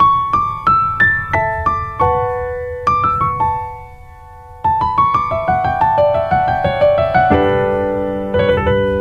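Solo piano music: single struck notes in rising and falling runs, with a brief lull about four seconds in and a fuller chord near the end.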